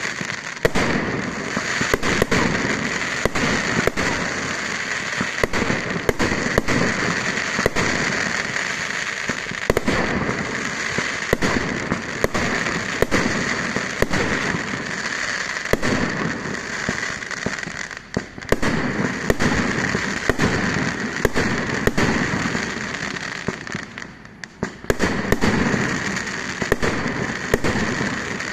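Fireworks display going off in a steady barrage of sharp bangs and crackle, with two short lulls.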